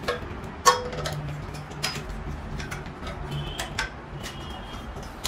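Sharp metal clinks and taps from the black steel-tube parts of a metal bed frame as a leg is fitted to its crossbar by hand, a handful of irregular knocks, the loudest about two-thirds of a second in.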